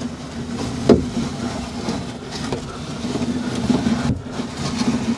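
The hand-cranked rear quarter window regulator of a 1967 Mercury Cougar being wound up: its gears and arm work and the glass slides up its freshly greased channels with a steady grinding, rubbing noise. There is a sharp click about a second in.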